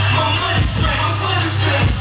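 Loud hip hop music through a club sound system: a heavy, steady bass and a pounding kick-drum beat, with a voice over the top.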